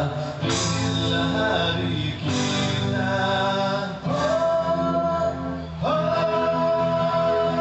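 Live busking band music with singing: long held vocal notes over a steady accompaniment, with the voice scooping up into a new held note about two seconds in and again near six seconds in.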